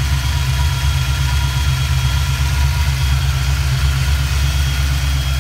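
1989 Ford Mustang's 5.0-litre (302) small-block V8, fitted with a Trick Flow (TFS) camshaft, idling steadily and heard close up from the engine bay. A faint steady whine sits above the engine note.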